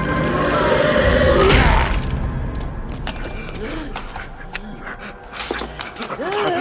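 Horror film soundtrack: tense sustained music with a low rumble swells to a loud sweeping hit about a second and a half in. It then drops to a quieter bed with scattered clicks and knocks and a few guttural vocal sounds near the end.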